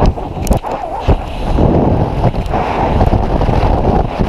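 Strong wind rushing and buffeting over the camera microphone during the freefall of a rope jump from a tall chimney. It is a loud, rough rush that hardly lets up.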